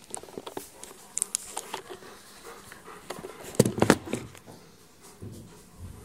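Light clicks and handling noises, then a cluster of loud knocks about three and a half seconds in as a camera is set down on a kitchen counter.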